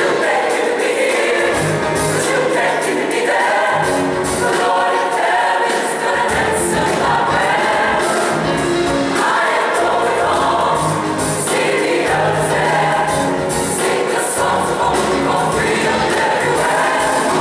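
Large children's choir singing a song in full voice, with an instrumental accompaniment holding a low line underneath.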